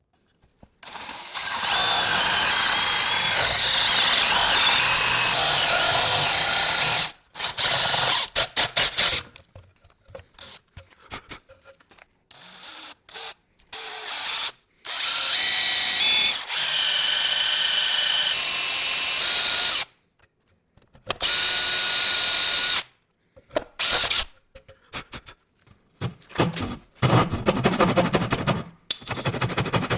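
A handheld power tool, drill-like, running with a high whine in bursts that start and stop abruptly several times; the longest runs last about five seconds. In the last few seconds it gives way to a rougher, rapidly pulsing sound.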